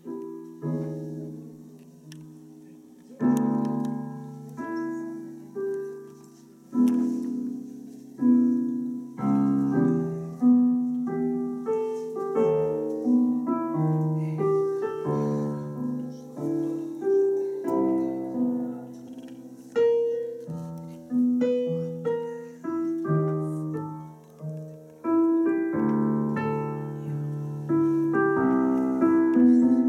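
Solo piano playing a slow melody over chords, each note struck and ringing out. It starts softly and grows fuller about three seconds in.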